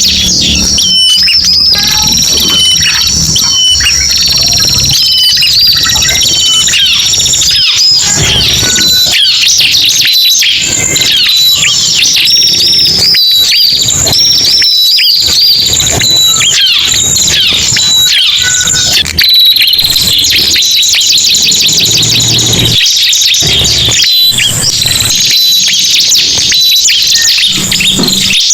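Loud bird-lure recording of ciblek and prenjak (prinia) calls: dense, overlapping high chirps and whistled notes. About two-thirds of the way in, a fast, rattling trill of rapidly repeated notes takes over.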